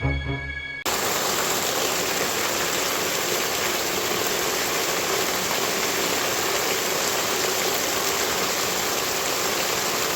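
Steady hiss of heavy rain pouring down, cutting in abruptly about a second in after a moment of music.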